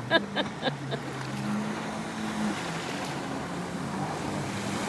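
Jet ski engines running out on the water, their pitch rising and falling as the riders work the throttle, over a steady wash of water and wind noise.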